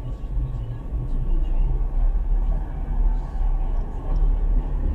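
A car on the move, with a steady low rumble of engine and road noise.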